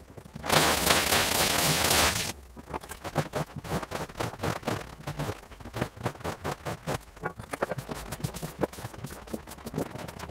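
Sped-up rug-cleaning work: a loud steady hiss for about two seconds, then a rapid run of short scraping or brushing strokes across the rug.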